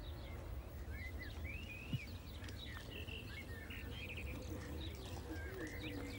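Small birds chirping, many short rising and falling notes, over a steady low outdoor rumble.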